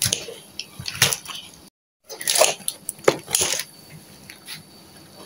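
Kitchen scissors snipping and crunching through the crisp skin and bone of a roast suckling pig's head, in short separate cuts. The sound drops out completely for a moment about two seconds in.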